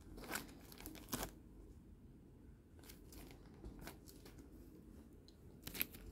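Scattered faint clicks and rustles of handling a small plastic transforming robot figure and a clear plastic bag holding its instruction sheet. The loudest clicks come about a second in and near the end.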